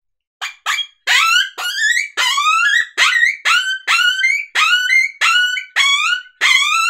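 Open-reed predator hand call blown as coyote pup distress: about a dozen short yelping cries, roughly two a second, each sliding down in pitch as the reed is worked from the end of the tone board back.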